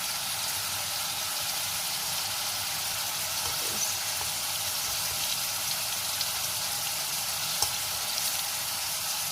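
Chicken pieces frying in hot oil in a pan: a steady sizzle with a few faint pops, one sharper pop near the end.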